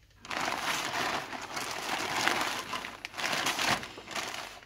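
Plastic courier mailer bag crinkling as hands handle it and turn it over, starting about a third of a second in and easing off near the end.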